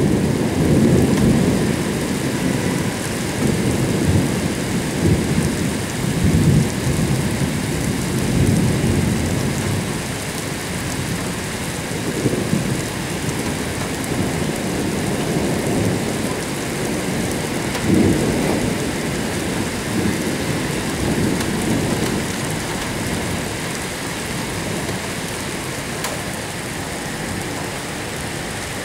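Heavy rain falling steadily, with thunder rumbling low in swells that rise and fade several times. The thunder is strongest in the first ten seconds and again about eighteen seconds in, then eases off toward the end.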